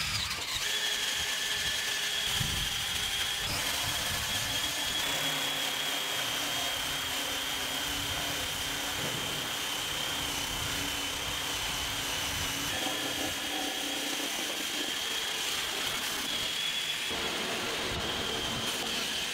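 Handheld drill spinning a wire wheel against flux-core MIG weld beads on a hull plate, brushing the flux off down to bare metal. A steady high motor whine runs over the scratchy hiss of the wires on the weld.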